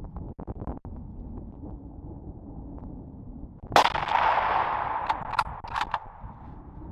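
A single hunting-rifle shot about four seconds in, its report rolling on and fading over about two seconds. Several short sharp clicks follow about a second and a half later, over a low steady background of wind.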